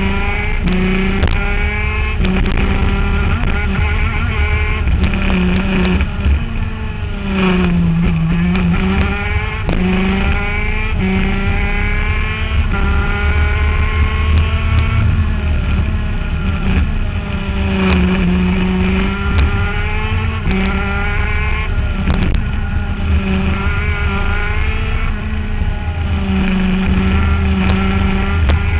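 125cc two-stroke ICC shifter kart engine heard on board at racing speed, its pitch climbing in repeated rising sweeps as it accelerates and dropping back sharply a few times as it slows for corners.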